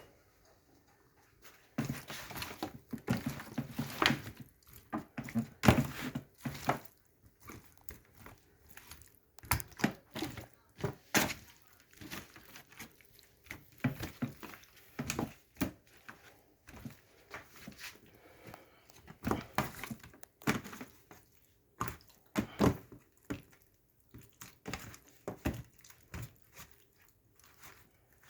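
Irregular soft knocks, clicks and squishy handling sounds of hands working seasoning into raw chicken pieces in a dish.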